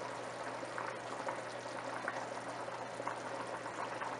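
Yakhni (goat-meat stock) boiling in an electric wok: a steady bubbling with small pops.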